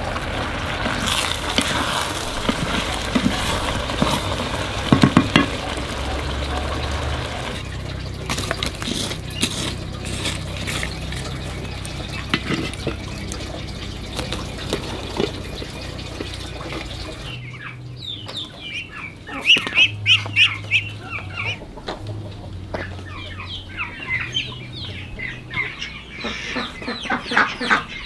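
A wood cooking fire hissing with scattered crackles, then, from about two-thirds in, chickens clucking in short repeated calls.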